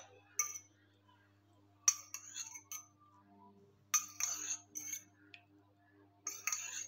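Steel spoon clinking against the rim and inside of a stainless-steel tumbler while scooping out water: several sharp metallic clinks with a short ring, a second or two apart.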